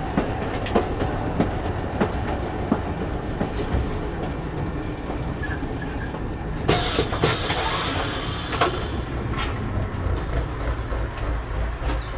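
Metre-gauge diesel railcar of the Chemins de Fer de Provence running along the track, heard from on board, with a steady low rumble and wheels clicking over rail joints. About seven seconds in comes a louder burst of clatter as the wheels cross the points and level crossing.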